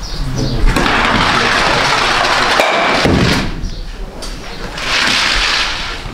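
An ice stock with a summer running sole lands on the tiled lane with a thud and slides along it with a long scraping hiss for about three seconds. A shorter burst of the same kind of hiss comes about five seconds in.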